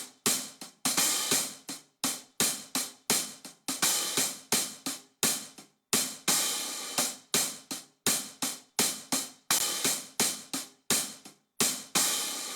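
Looped drum beat, mostly hi-hat and cymbal: a quick, steady pattern of short metallic hits with a longer ringing cymbal every few seconds.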